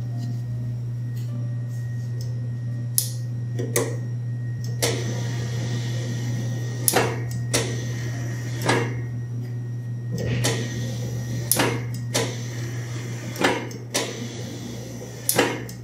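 Dough sheeter running with a steady low motor hum while puff pastry is rolled through it. About a dozen sharp clicks and knocks are spread irregularly through it as the machine is worked.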